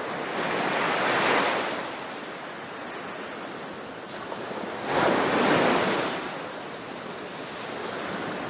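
Atlantic surf breaking on the beach: a steady wash of waves, with two larger breakers crashing, one about a second in and another about five seconds in.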